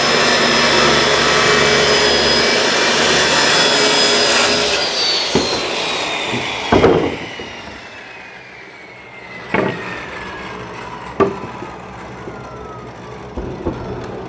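An electric motor running steadily at speed, then switched off about four seconds in and coasting down in a long, steadily falling whine. A few sharp knocks come as it winds down.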